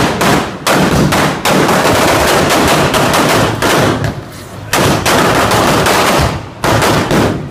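Strings of firecrackers going off on the ground: a loud, dense, rapid rattle of bangs, with a short lull about halfway through and another near the end.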